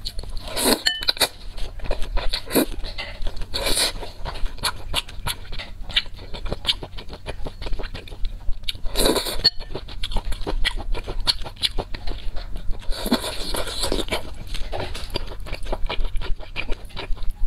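Close-miked eating of spicy instant noodles: several loud slurps (about a second in, near four seconds, near nine seconds and around thirteen to fourteen seconds) between wet chewing, with chopsticks clicking against the bowl.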